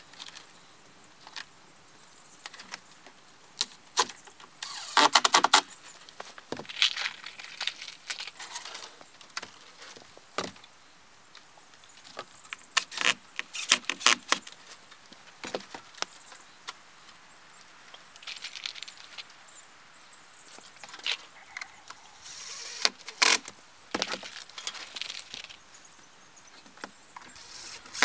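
Irregular knocks, clicks and light metallic clinks of hand work on wooden roof-edge trim: boards being handled and fixed with hand tools, with several short clusters of rapid taps.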